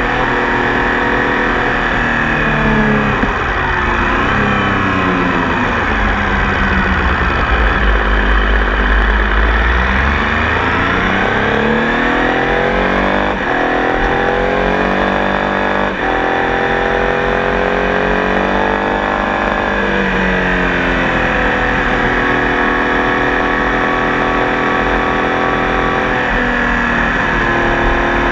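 Triumph Tiger Sport 800 motorcycle's three-cylinder engine under way, the revs rising and falling several times through the first twenty seconds, then holding steady near the end. A low rumble of wind on the microphone comes in briefly around the middle.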